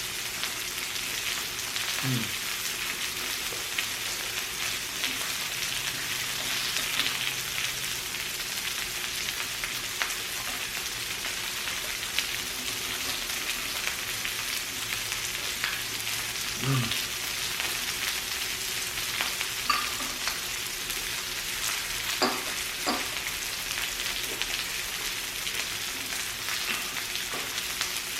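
Pork belly sizzling steadily on a Korean barbecue grill, with a couple of sharp clicks about two-thirds of the way through.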